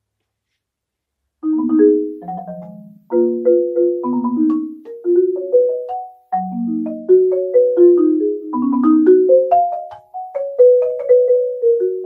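Marimba played with mallets: after about a second and a half of silence, it sounds chords and short runs of struck notes, each ringing briefly and dying away, moving up and down the instrument's middle range.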